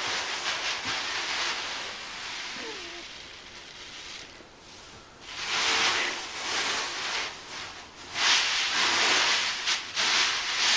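Masses of tiny beads in a bathtub hissing and rustling as they shift and slide around a cat sitting in them, swelling into louder surges about halfway through and again near the end.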